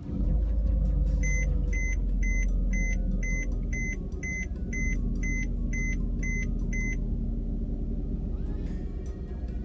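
Mercedes-Benz E350's V6 engine just started and idling with a steady low rumble. A dashboard warning chime beeps about twice a second, starting about a second in and stopping after about a dozen beeps.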